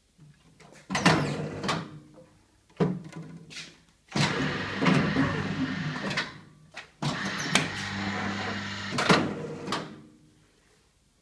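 IDEAL 4850-95EP programmable electric guillotine paper cutter going through a cut. A few clunks come first, then its drive runs with a steady hum for about three seconds. It pauses briefly, runs again for about three seconds with a clunk near the end, and stops.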